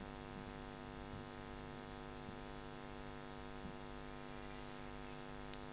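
Faint, steady electrical mains hum from the microphone and sound system, with a faint tick near the end.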